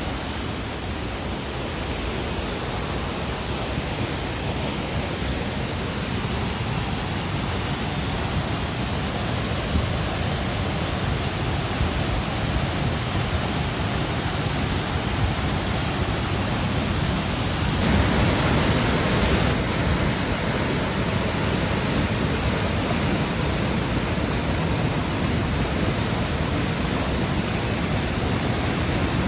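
Waterfall's rushing water: a steady, dense hiss of falling white water, swelling briefly about eighteen seconds in.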